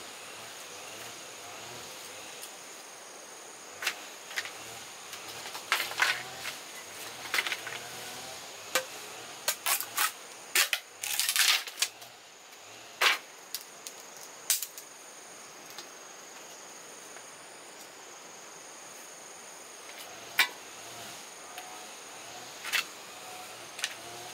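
A run of sharp, irregular snaps and knocks, thickest in the middle and sparser near the end, over a faint steady background with a thin high insect-like whine.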